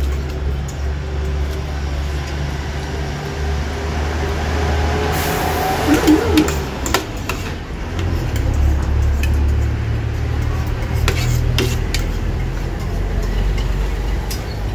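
A fork and spoon clicking against a plate as food is eaten quickly, over a low steady rumble, with a burst of hiss about five seconds in.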